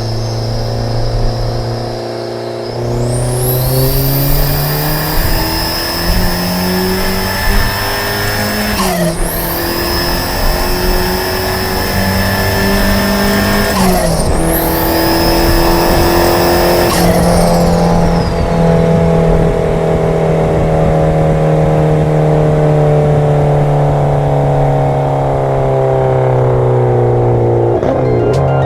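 Turbocharged Audi A4 B5 1.9 20-valve four-cylinder accelerating hard through the gears: the revs climb, drop at two gear changes, climb again, then ease off slowly. A high turbo whine rises with each pull, and there is a short burst of noise at each change.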